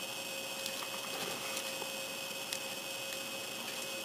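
Steady electrical hum with a high whine and hiss, over which come a few faint clicks of small plastic model-kit parts being pressed together by hand, the clearest about two and a half seconds in.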